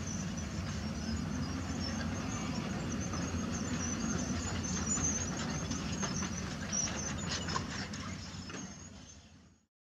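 Diesel engines of heavy equipment running: a Hyundai 220-9S crawler excavator with dump trucks idling and manoeuvring. It is a steady low engine sound with a few faint knocks, and it fades away near the end.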